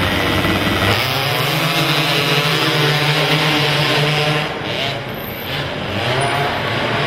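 Racing quad (ATV) engines running hard. The engine note jumps up in pitch about a second in, eases off briefly a little past halfway, then comes back on.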